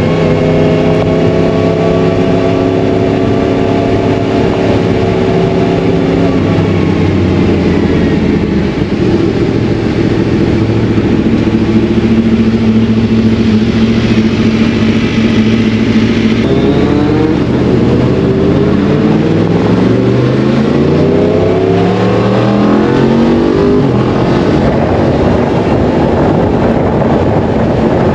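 Track motorcycle engine running at a low, fairly even pace, holding one steady note for a few seconds, then a bit past halfway accelerating hard up through the gears, its pitch climbing and dropping back at each shift.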